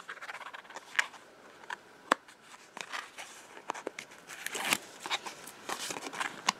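Paper and adhesive liner crackling and rustling as the backing is picked at and peeled off double-sided adhesive tape on a piece of cardstock, with a few sharp clicks.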